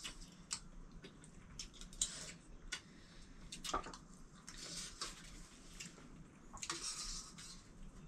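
Faint scattered clicks and clinks of dishes with a few soft scraping swishes, as people eat from plates.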